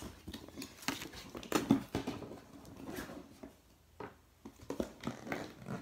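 Clear plastic accessory capsules and cardboard packaging being handled: scattered light clicks, taps and rustles as compartments of a toy box are pushed open, with a quieter stretch a little past halfway.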